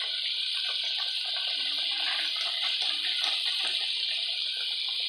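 Breaded crappie deep-frying in hot oil in a wire fry basket: a steady, loud sizzle with a dense crackle of small pops.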